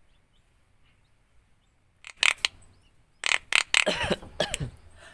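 Javan myna (jalak kebo) giving a string of short, harsh, noisy calls starting about two seconds in, with a couple of falling tones around four seconds.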